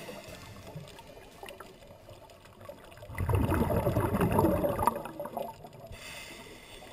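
Scuba regulator exhaust bubbles heard underwater, a gurgling rush that swells for a couple of seconds about three seconds in, then fades.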